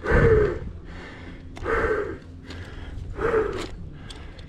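A mountain biker panting hard just after racing an enduro stage: three heavy, gasping breaths about a second and a half apart, the first the loudest.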